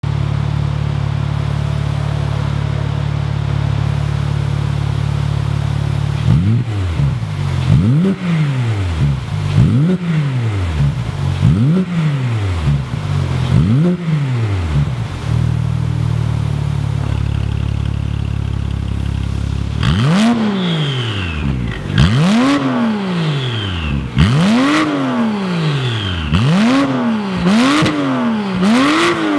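Porsche 911 Carrera S (991.2) 3.0-litre twin-turbo flat-six, breathing through an Armytrix valved aftermarket exhaust, revved while parked. It idles steadily, is blipped up and back down about every two seconds, settles back to idle, then is revved higher in a second run of quick blips with sharp cracks between them.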